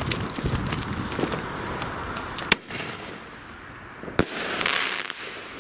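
Weco Sky Shot single-shot firework: the fuse sputters, then a sharp bang about two and a half seconds in as the shell launches. A second bang comes about four seconds in as the shell bursts, followed by a short spell of crackling.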